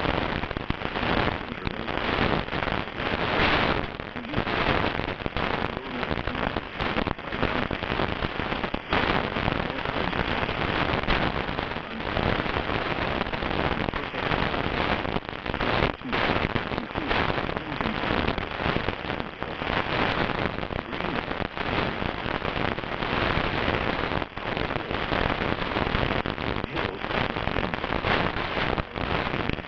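Dense, continuous crackling noise, like rain pattering on a surface or heavy static.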